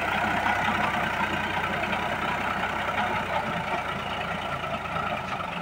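Powertrac Euro 50 tractor's diesel engine running steadily under load while driving a rotavator.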